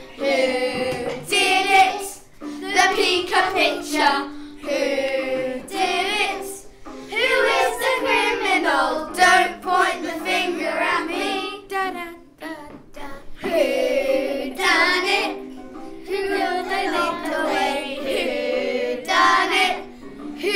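A song sung by children's voices over steady held accompaniment chords, with short pauses between phrases.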